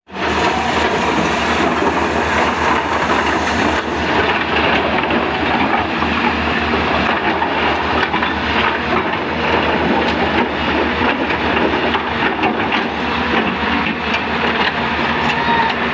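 Excavator diesel engines running hard while loading stone and sand, with a steady mechanical noise and many knocks and clatters of rock through it.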